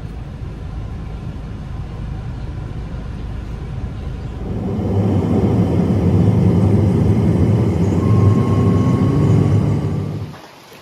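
Car interior noise while driving: a steady low rumble of engine and tyres on the road, which grows louder about four and a half seconds in and stops suddenly just after ten seconds.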